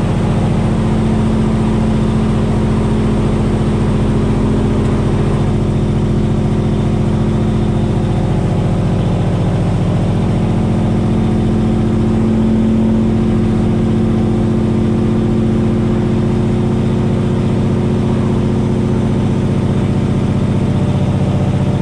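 Straight-piped diesel engine of a loaded semi truck, heard from inside the cab, running steadily with a deep, even drone and little change in pitch.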